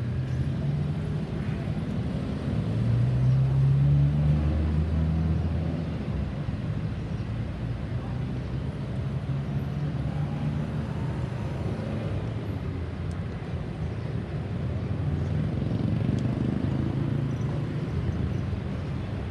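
Road traffic: motor vehicles running past with a steady low engine rumble that swells about three to five seconds in and again around sixteen seconds.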